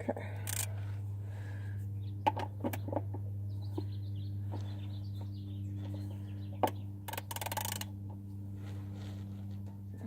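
Sharp metal clicks and clinks of a socket wrench being worked on the oil drain plug, with a short rasping burst near the end. Birds chirp in the middle, and a steady low hum runs underneath.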